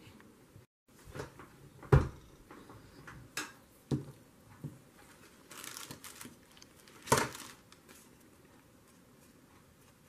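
Craft-table handling noises: scattered light taps and knocks of hands and paper on the table, with a short plastic crinkle from a clear zip-top bag being rummaged about six seconds in.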